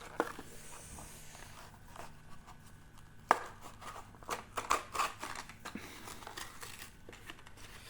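A Hot Wheels blister-card package being opened by hand: scattered clicks and crinkles of the plastic bubble and cardboard backing, with one sharp snap a little past three seconds in and a quick cluster of clicks around the middle.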